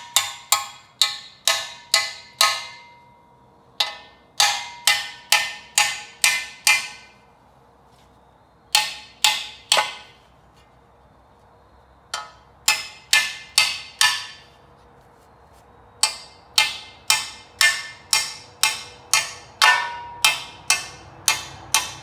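Hammer blows on steel parts of a Chevrolet small-block V8, each strike ringing briefly. They come about three a second in runs of three to a dozen blows, with short pauses between runs.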